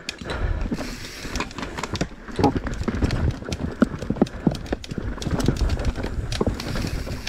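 Mountain bike riding rough singletrack: a steady low rumble from the tyres and wind, with the bike rattling and knocking irregularly over roots and rocks, the knocks getting louder about two and a half seconds in.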